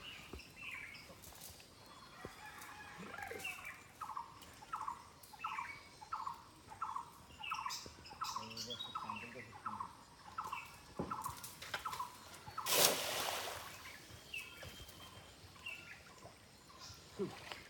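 A bird calls over and over in short falling notes, about two a second. About 13 seconds in comes a single loud splash of a cast net landing on the pond, lasting under a second.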